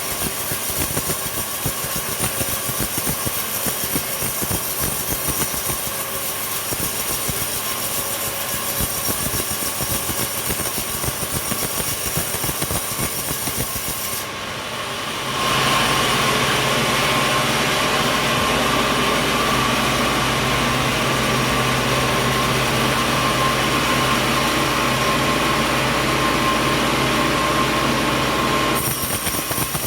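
Sawmill machinery running loudly. About halfway the sound switches abruptly to a louder, steadier run with a steady hum, then switches back shortly before the end.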